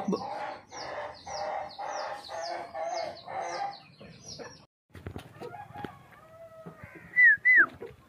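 Farmyard poultry calling: a rapid run of short calls, about three a second, for the first half. After a break, two short, loud, high calls falling in pitch come near the end.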